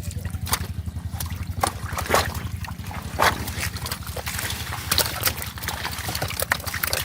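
Water splashing and sloshing in short irregular bursts, as hands work through shallow river water and floating water hyacinth, over a steady low hum with a fast pulse like a distant motor.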